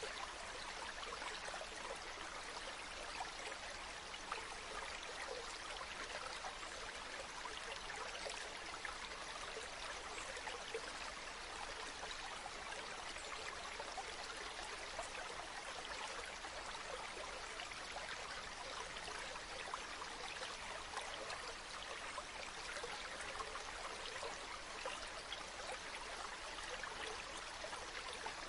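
River water flowing and babbling over stones, a steady splashing rush with no break.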